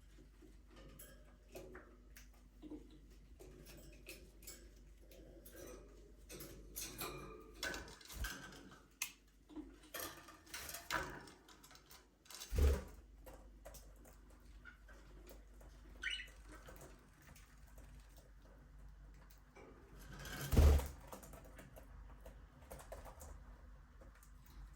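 Budgerigars chirping and chattering softly, with many scattered light clicks and patter. Two loud thumps, one about halfway through and one near the end.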